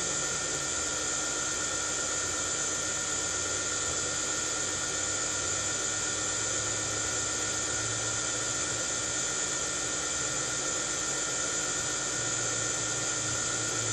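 A small motor running steadily, with an even hiss and a high whine that do not change.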